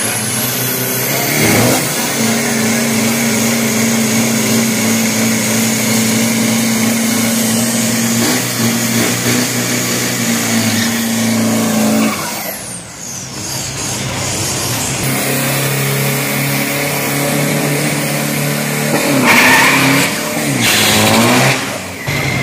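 Toyota Hilux Vigo drag-racing pickup doing a burnout: its engine is held at high, steady revs for about ten seconds while the rear tyres spin and squeal, then it lets off. Later a drag pickup's engine is again held high, with two sharp rev blips near the end.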